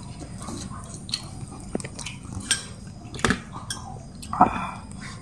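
Light clicks and clinks of tableware as food is handled: bamboo chopsticks and a metal spoon against ceramic bowls. A louder, briefly ringing clink comes near the end.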